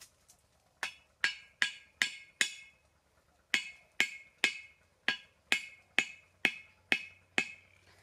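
Machete striking the top of a thin wooden stake, hammering it into the ground: five sharp knocks, a pause of about a second, then nine more, about two to three a second, each with a short ring.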